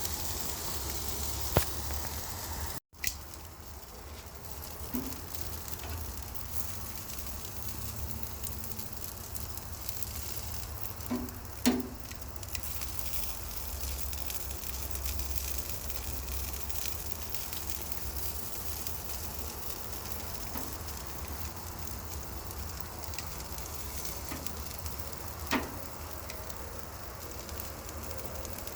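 Meat sizzling as it cooks on a grill, a steady hiss broken by a few sharp knocks and clicks, with a brief cut-out about three seconds in.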